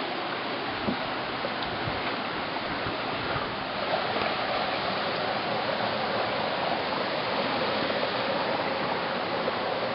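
Small stream cascading over boulders in a narrow rock gorge: a steady rush of water that grows a little louder about four seconds in. A faint knock sounds about a second in.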